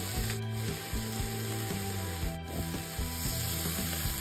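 Egg noodles and dark soy frying in a very hot carbon-steel wok: a steady sizzle with scraping. Near the end, water hits the wok and it flares up in a burst of steam.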